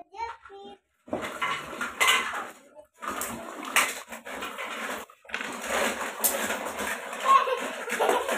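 Clattering and clinking of dishes and cutlery, starting about a second in and breaking off briefly about five seconds in.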